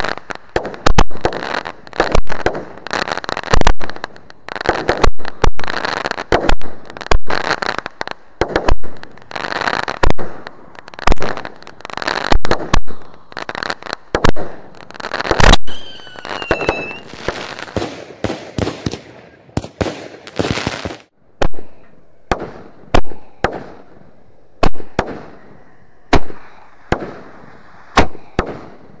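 Fireworks going off: a rapid barrage of sharp bangs and crackling, with a whistling firework about halfway through. The bangs come further apart in the last third.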